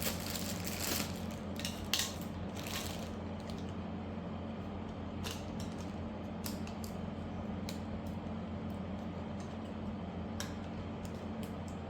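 Plastic wrapping crinkling and small plastic figure parts clicking as they are unwrapped, busiest in the first three seconds and then scattered single clicks, over a steady low hum.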